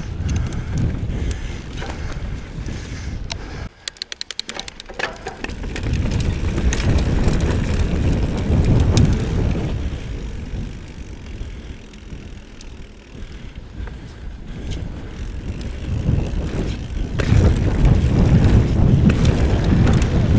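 Mountain bike descending a rough dirt singletrack: wind buffeting the microphone and the tyres and bike rattling over the trail, the noise swelling and easing with speed. About four seconds in the rush drops away briefly and a run of rapid ticks, slowing, is heard.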